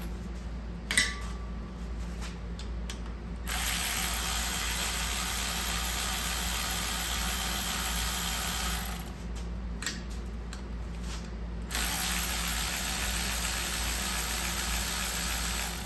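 Ratchet wrench clicking steadily on engine bolts in two long runs of several seconds each. In the pause before and between the runs come a few separate clicks and a sharp knock about a second in.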